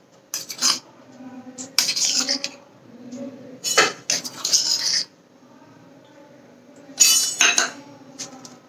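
Steel tablespoon clinking and scraping against a stainless-steel mesh sieve as spoonfuls of sugar are tipped in, in four short bursts with quiet gaps between them.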